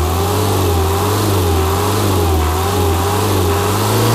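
Isuzu NMR truck's 4.3-litre naturally aspirated diesel with mechanical injection, running with its oil filler left open to check for blow-by; no oil spits out. Its speed rises a little right at the start, then holds with a slight waver.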